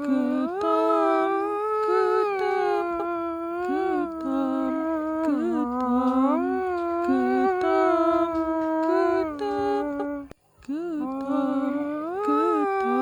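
A sad Hindustani-style melody carried by a single wordless, wavering voice. It holds long notes that bend and slide between pitches, with a short break about ten seconds in.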